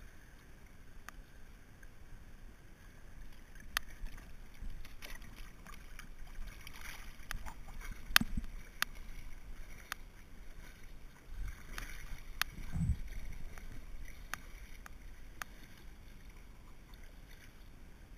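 River water splashing and lapping close around an inflatable tube drifting downstream, with scattered sharp ticks of water and a couple of low bumps about eight and thirteen seconds in.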